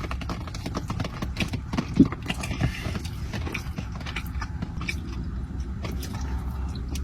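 Close-up chewing of a cream-filled powdered sugar donut: many soft, irregular mouth clicks and smacks, over a steady low rumble.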